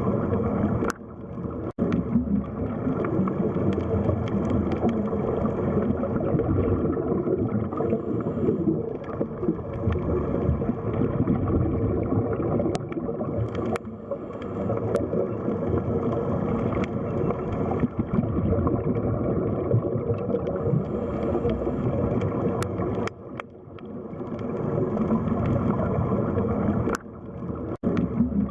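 Underwater ambience of the sea bottom: a steady, low rush and gurgle of water, with a few faint clicks and brief sudden dips in level.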